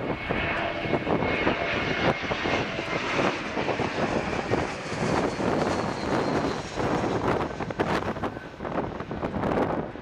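Jet engines of an Airbus A321 airliner passing low overhead on approach with its landing gear down: a steady engine noise with a faint high whine in the first few seconds. Gusty wind buffets the microphone throughout.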